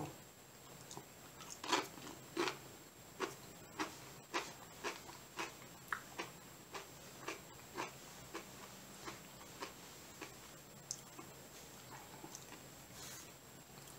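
A person chewing a tortilla chip loaded with thick salsa: a run of crunches, a little under two a second, that get softer as the chip is chewed down.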